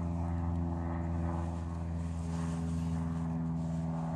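A steady, low mechanical drone with several even overtones, holding the same pitch throughout: a running engine or motor.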